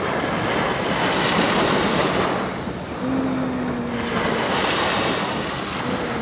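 Small sea waves breaking and washing up on a sandy shore, the surf swelling and easing, with wind buffeting the microphone.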